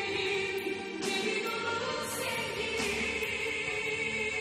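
Background music with held, choir-like singing, the notes changing every second or two, and soft hissing swells rising over it a few times.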